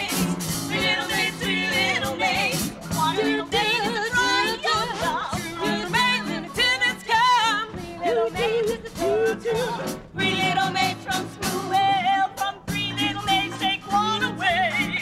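Live show music: singers with a wide vibrato over a band with a steady percussive beat.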